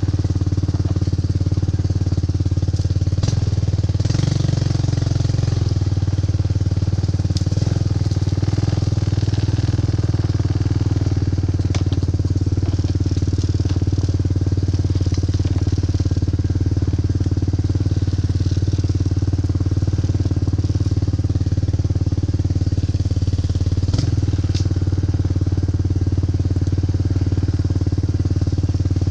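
Four-wheeler (ATV) engine running steadily while riding, with a few sharp knocks or rattles scattered through.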